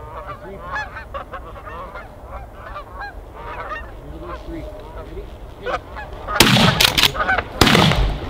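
A flock of Canada geese honking as they come in over the decoys, then two shotgun shots about a second apart near the end.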